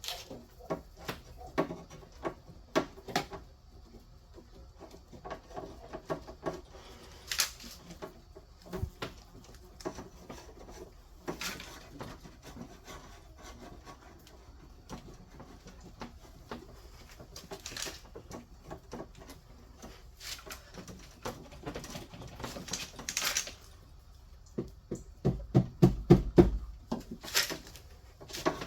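Irregular clicks, taps and rattles of small hard objects being handled, with a quick run of heavier knocks near the end.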